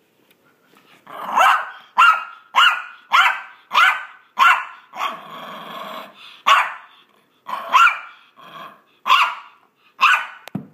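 Small Maltese dog giving a quick run of short, high play barks, about one every half second, with a longer rough growl in the middle. These are mock-fierce play noises made during a game of fetch.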